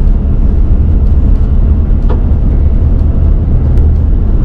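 Vehicle driving on a dirt road, heard from inside the cabin: a steady low rumble of engine and tyres on the packed earth, with a few faint clicks and knocks.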